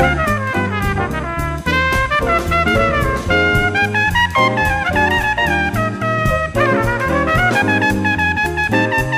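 Instrumental break of an upbeat swing-style song: horns playing a moving melody over a steady drum beat.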